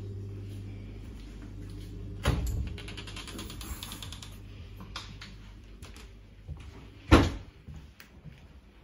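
A steady low hum fades over the first couple of seconds. Two loud thumps follow, about five seconds apart, the second the louder, with light scattered clicks from footsteps and handling between them.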